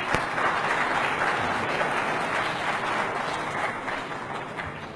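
Audience applauding in a large hall, the clapping dying away near the end.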